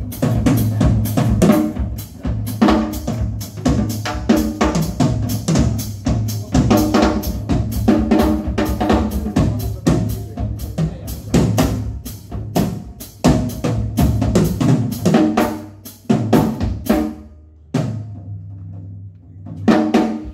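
Drum solo on a live drum kit: a fast, dense run of snare, bass drum and cymbal strikes that drops to a brief lull a couple of seconds before the end, then comes back with hard hits.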